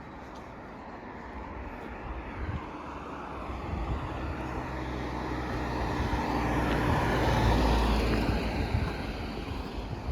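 A road vehicle passing by, its engine and tyre noise building over several seconds, peaking about three-quarters of the way through and then fading.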